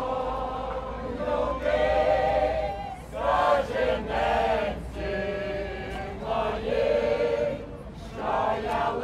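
A group of people singing a song together in chorus, in sung phrases with short breaks between them.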